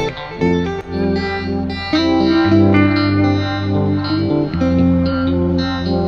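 Background music with guitar, notes played in a steady rhythm.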